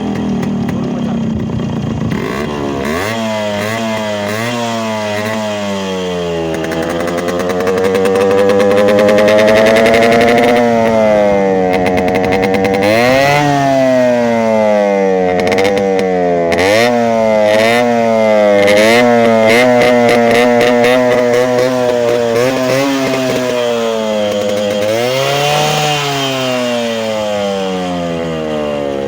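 Yamaha RX100's two-stroke single-cylinder engine being revved again and again, its pitch climbing and dropping with each blip of the throttle, with one long climb in the first third.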